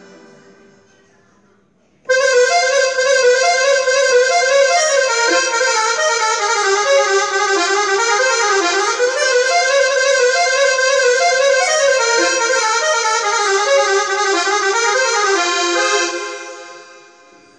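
Roland Lucina AX-09 keytar playing an Indian-style melody on a sustained lead voice. The line starts abruptly about two seconds in after the previous phrase dies away, runs on continuously with some sliding notes, and fades out near the end.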